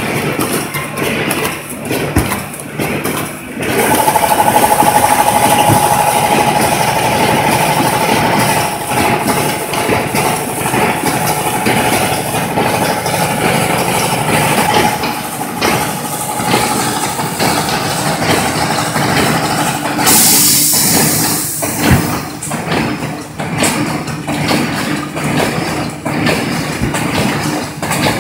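Corrugated partition assembler machine running: motors and mechanism clattering with repeated short knocks. A steady whine sits over the noise for much of the time, and a burst of hiss comes about two-thirds of the way through.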